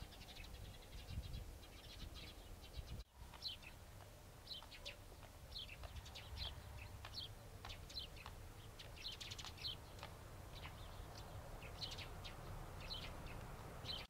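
Small birds chirping, many short high chirps, some in quick runs, over a low steady rumble. The sound drops out briefly about three seconds in.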